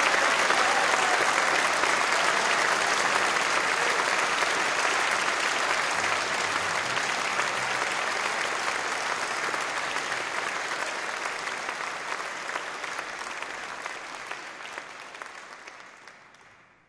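Audience applauding after a live concert performance: dense, steady clapping that fades out over the last few seconds.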